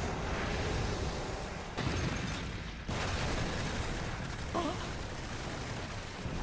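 Anime fight sound effects: a continuous rumble of blasts and explosions, with sudden heavier hits about two and three seconds in.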